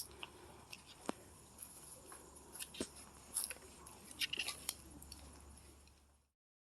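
Scattered faint clicks and light crunches over a quiet, steady background hum. The sound cuts to dead silence near the end.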